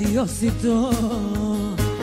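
Live Serbian wedding band playing, with a singer's wavering, ornamented melody over a steady beat and bass.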